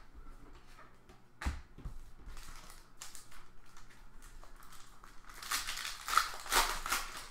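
A single soft thump about one and a half seconds in, then rustling as a foil-wrapped Panini Prizm basketball card pack is handled. Near the end comes a louder, crackling rip as the pack's foil wrapper is torn open.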